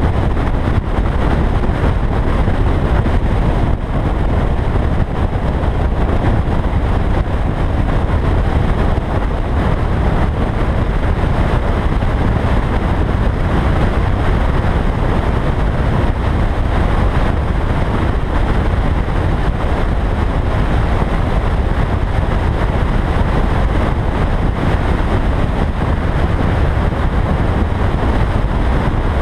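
Car cruising at a steady speed on an open road: a steady rush of engine, tyre and wind noise, heaviest in the low end.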